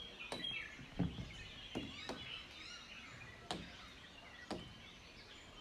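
Birds chirping faintly over a quiet outdoor background, broken by several sharp knocks about a second apart.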